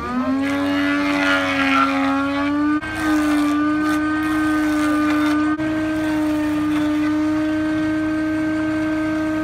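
A loud, steady mechanical drone, like a motor or engine running. It rises in pitch at the start, then holds one high pitch, with two brief breaks.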